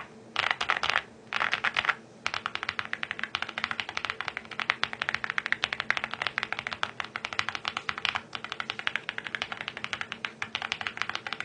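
Zoom65 custom keyboard with lubed and filmed Strawberry Milk tactile switches and a tape mod being typed on: two short bursts of keystrokes, then steady fast typing from about two seconds in.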